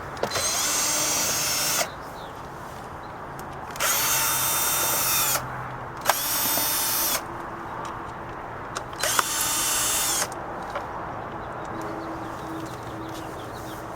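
Electric drill-driver with a Phillips bit running in four short bursts, each about one to one and a half seconds long, backing out the small screws of a cover on the engine.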